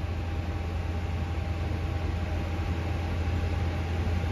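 Steady rush of a Toyota Sienna Hybrid's cabin heater blower running on full, with the engine idling underneath as a low, even hum, heard from inside the cabin. The engine is held running in maintenance mode to circulate coolant and purge air after a coolant refill.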